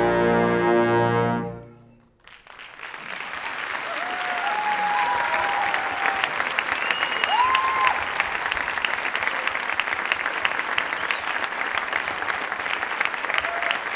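Symphonic wind band holding a brass-heavy final chord that cuts off about a second and a half in. After a moment's hush, audience applause breaks out, builds and carries on, with some cheering over it early on.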